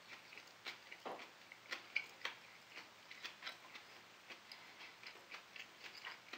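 Knife and fork clicking and scraping against a plate while cutting food, a string of faint, irregular clicks.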